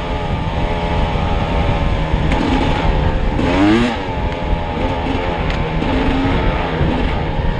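Dirt bike engine running under throttle on a trail, its note rising and falling with the throttle, with one sharp rev climbing and dropping back about three and a half seconds in.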